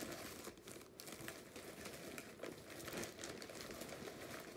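Packaging crinkling and rustling as balls of yarn are handled and rummaged through, with many small sharp crackles.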